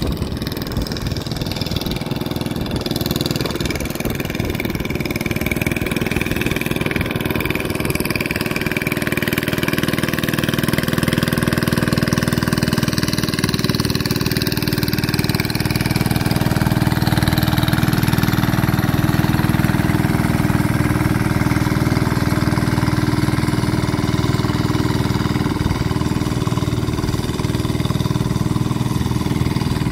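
Two-wheel hand tractor's engine running steadily as it plows a flooded rice paddy, growing louder from about ten seconds in.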